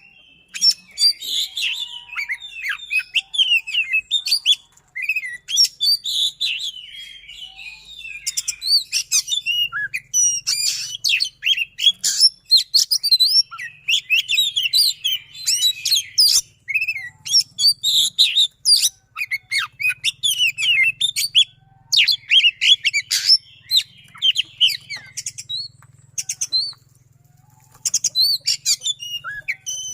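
Oriental magpie-robin (kacer) singing a fast, densely packed song of quick rolled trills and sharp piercing notes, with a short lull near the end.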